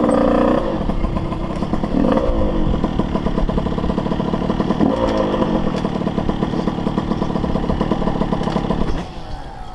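Motocross dirt bike engine running at low speed with a few short throttle blips, then cutting off near the end.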